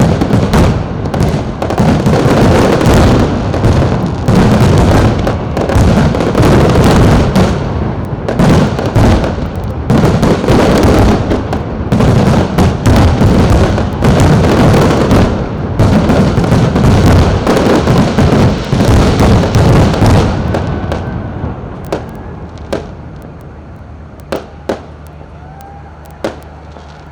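Fireworks display: a dense, continuous barrage of bangs that thins out about twenty seconds in to a few scattered single bangs.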